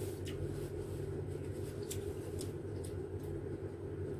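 A person chewing soft mango with the mouth closed: a few faint, scattered mouth clicks over a steady low hum.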